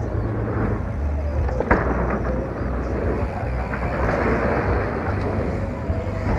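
Mountain bike rolling over a dirt trail: wind rumbles on the microphone over tyre noise, with one sharp knock nearly two seconds in.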